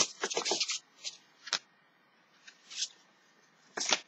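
Paper and cardboard rustling from handling a sheet of stickers and a cardboard advent calendar. A quick flurry of rustles comes in the first second, followed by a few short, separate rustles.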